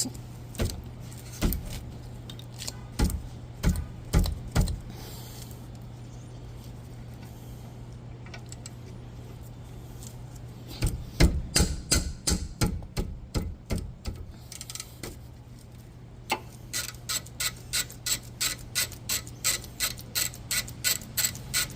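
Hand socket ratchet clicking in short runs as a brake caliper bolt is turned out, the clicks settling into a steady rhythm of about three a second near the end. A steady low hum sits underneath.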